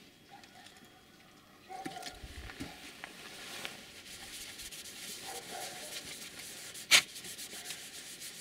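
Cotton wool soaked in ethyl alcohol being rubbed over a wooden board to scrub off paint stains, a scratchy rubbing that starts about two seconds in and goes on, with one sharp click about seven seconds in.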